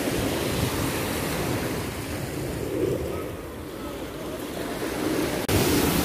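Small sea waves washing up and running back over a sandy beach, with wind buffeting the microphone.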